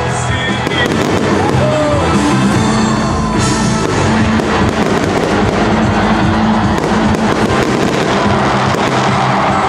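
Fireworks going off over loud music: pops and crackles, with one sharp bang about three and a half seconds in.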